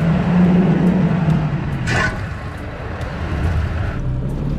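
Toyota Tacoma's 3.5-litre V6 running at low speed as the truck crawls over trail rocks, heard from under the truck. About two seconds in there is a single short knock: the underside shield striking a rock.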